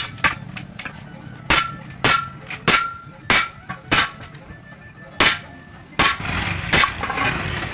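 About ten sharp metal strikes at an irregular pace, some with a brief metallic ring: hammering on a truck wheel during a tyre change.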